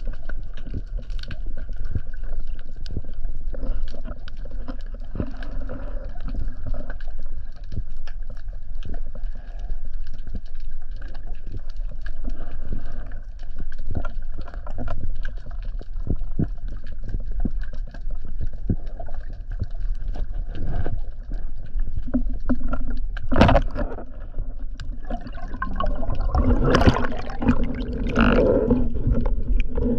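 Underwater sound through a GoPro housing on a spearfishing dive: a steady muffled rush of water with scattered small clicks. About 23 seconds in comes one sharp crack, the band-powered speargun firing at a sea bream, followed near the end by a few seconds of louder bubbling and rustling as the diver handles the gun.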